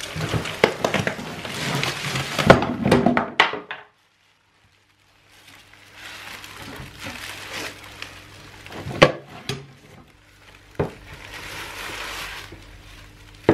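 Clear plastic wrapping rustling and crinkling, with scattered knocks and clunks, as a spot welder and its heavy cables are lifted out of a wooden crate. The sound cuts out completely for about a second, about four seconds in, then the rustling and a few single knocks carry on.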